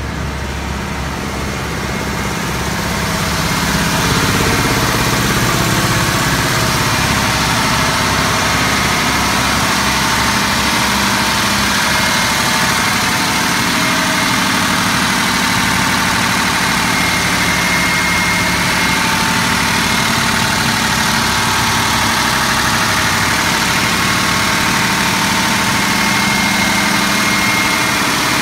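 Diesel power generator engine running steadily, growing louder over the first few seconds and then holding level.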